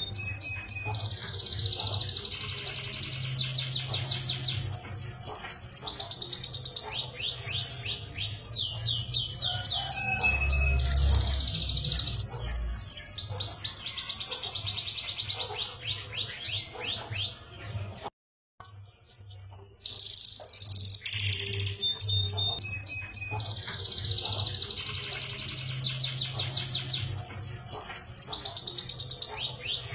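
Canary singing a long, continuous song of fast rolling trills and rapid repeated notes, which breaks off suddenly for a moment about two-thirds of the way through.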